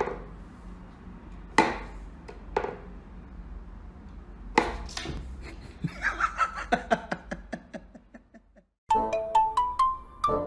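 Three sharp wooden knocks from a wooden whack-a-mole cat toy, over faint background music. Near the end a quick melody of short, high, bell-like notes takes over.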